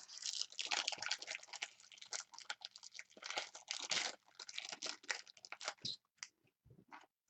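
Trading-card pack wrapper crinkling and tearing as the pack is opened. A dense run of crackles lasts about six seconds, then a few scattered clicks follow.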